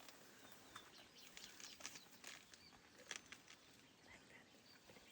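Faint forest ambience: scattered soft crackles and rustles, with a few faint bird chirps.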